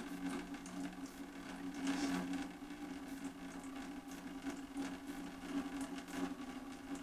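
A steady low hum with faint scattered clicks and rustles.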